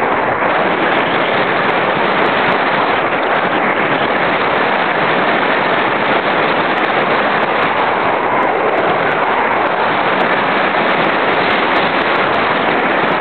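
Loud, steady, crackly rush of wind noise on the microphone of a camera carried on a Thrush RC glider in flight, with airflow buffeting it throughout.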